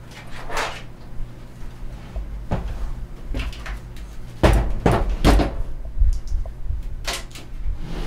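Hands handling bundled cables inside a Thermaltake Armor A60 PC tower case, knocking them against the case: several separate knocks and bumps, the loudest two close together about halfway through, over a low steady hum.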